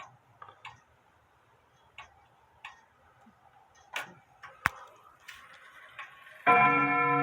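Embee grandfather clock ticking, with sharp, irregular clicks from the movement. Near the end, a rod of its bim-bam chime is struck and rings loudly with several held tones.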